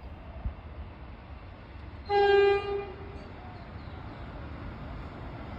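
Metro X'Trapolis electric train sounding one short low-note horn blast about two seconds in, over a low steady rumble.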